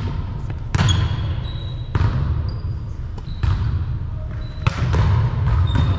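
Volleyballs being struck and bouncing on a hardwood gym floor, four sharp echoing hits about a second or so apart, with short sneaker squeaks and players' voices in a large hall.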